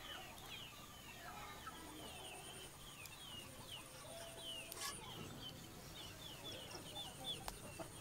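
Birds chirping faintly, a dense run of quick, falling chirps overlapping one another, with a thin steady high trill above them.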